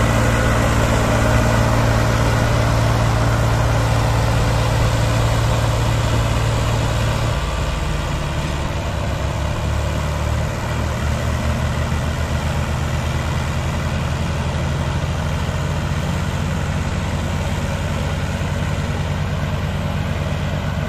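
Diesel tractor engines running under load as a Swaraj 735 FE tows two chained Mahindra tractors and a trolley through sand. The steady low engine note drops about seven seconds in and the sound becomes slightly quieter.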